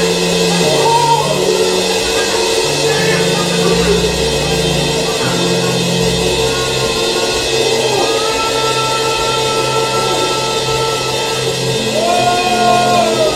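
Gospel worship music from a live church band: a bass line moving from note to note under drums and cymbals, with long held notes above.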